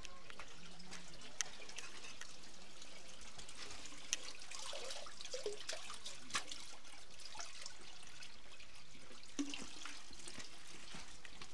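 Rustling, crackling handling noise of a phone microphone rubbing against clothing as its wearer moves, with scattered small clicks.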